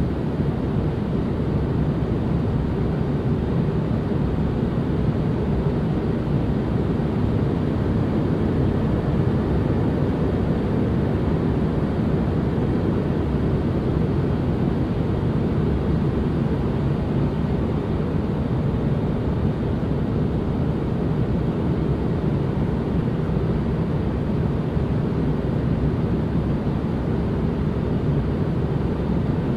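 Steady, unchanging noise for relaxation or sleep. Its energy sits mostly low, so it sounds like a dull rumbling hush rather than a bright hiss.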